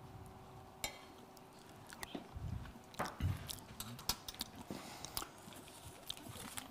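A few faint, scattered clicks and taps of a metal spoon against a small saucepan, over quiet room tone with a steady faint hum.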